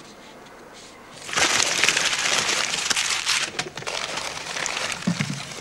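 Newspaper crinkling and rustling as a wrapped object is unwrapped by hand, starting suddenly about a second in, loudest for the next two seconds, then going on as lighter crackles.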